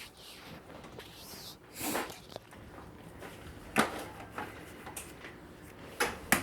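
A few sharp taps and clicks of hands handling a plastic pancake blender bottle and ingredients, the loudest two close together near the end, with a soft rustle about two seconds in.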